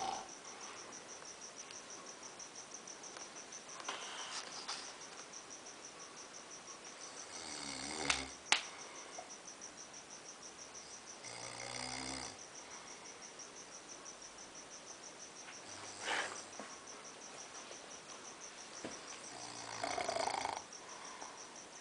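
A person snoring in slow, regular breaths, five snores about four seconds apart. A steady, high, pulsing chirp runs underneath.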